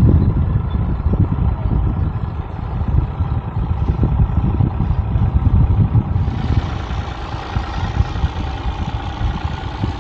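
A sailing yacht's engine running steadily as the boat motors away from an anchorage, a continuous drone with a strong low rumble. A higher hiss joins about six seconds in.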